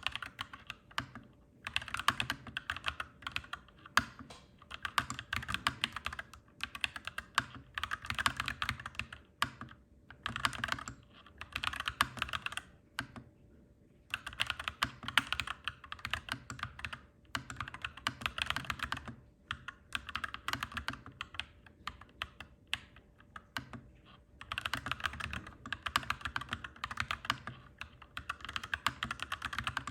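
Clacky mechanical keyboard being typed on in fast runs of keystrokes, broken by short pauses, one longer pause about halfway through.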